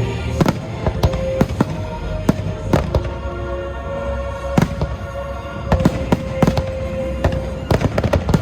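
Fireworks bursting in an irregular string of sharp bangs, over the show's music with its held tones.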